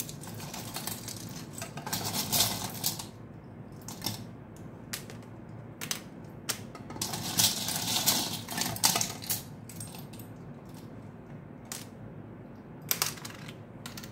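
Small metal charms clinking and rattling as a hand rummages through a bowl full of them, in two longer spells. Separate light clicks come in between as single charms are set down on a tray.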